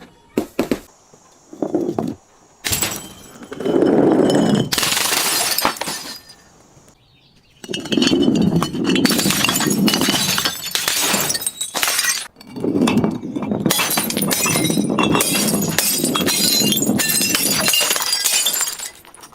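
Glass being broken and crushed: a few sharp cracks, then long spells of dense crunching and shattering as the glass is ground into pieces, with a short pause about halfway.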